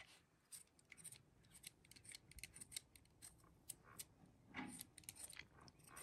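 Faint, irregular crisp clicks and scrapes of a kitchen knife cutting the peel from a raw potato, with a slightly longer scrape a little past halfway.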